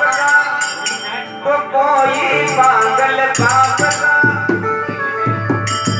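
Live devotional music on harmonium, with a held, reedy melody and jingling hand percussion. Dholak drum strokes come in about three and a half seconds in, at a steady beat of two to three a second.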